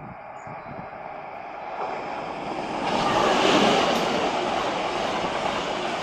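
Renfe Alvia series 130 train approaching along the platform with a rushing rail and wheel noise that swells over the first three seconds, peaks about three and a half seconds in, and stays loud as the train goes by.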